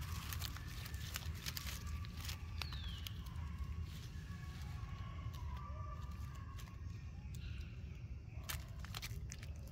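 Dry leaf litter crackling and rustling in short clicks as a baby macaque moves on it, over a steady low rumble.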